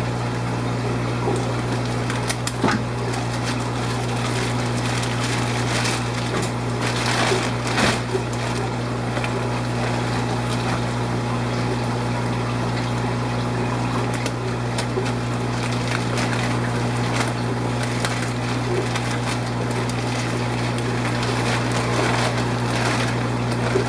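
Steady hum of aquarium pumps and the rush of running water in a saltwater fish room, with a few brief light knocks.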